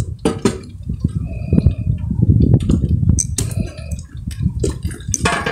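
Dye bath in a large metal pot being tipped out and splashing into a brick pit. Sharp metal clinks from the pot and a lid come near the start, around the middle and near the end.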